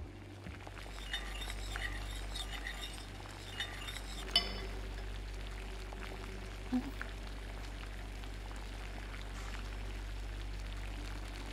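Kitchen dishes and utensils clinking as food is plated: a run of light clinks, one sharp ringing clink about four seconds in, and a softer knock near seven seconds, over a steady low hum.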